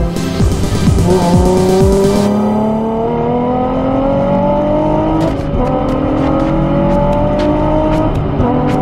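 Nissan 350Z's 3.5-litre V6 engine heard from inside the cabin, pulling hard under full acceleration with its pitch climbing steadily. The pitch drops about five and a half seconds in and again near the end, and each time it climbs again.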